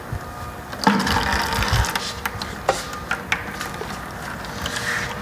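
Thick gear oil pouring out of a Ford Explorer 8.8 rear axle's open differential housing into a plastic bucket, loudest about a second in, with sharp metal clicks and knocks as the axle housing is handled.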